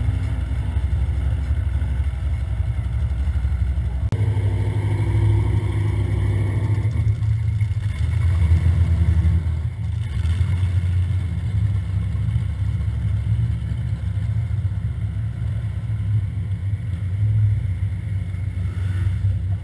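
Off-road vehicle engines running at low speed as Polaris side-by-side UTVs and a Jeep crawl past one after another, over a steady low engine hum throughout; a louder engine passes about four to seven seconds in.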